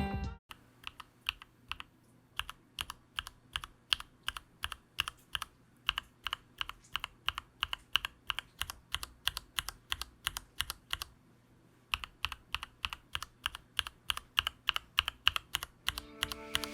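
Typing on a Nuphy Field75 mechanical keyboard: a steady run of keystroke clicks, stopping for about a second near the middle, then resuming.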